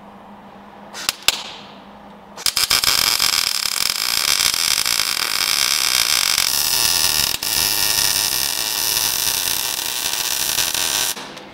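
Arc welding on a steel truck frame crossmember. Two short sharp pops come about a second in. Then a steady crackling and hissing arc runs for about nine seconds, its tone changing about halfway through, and stops abruptly.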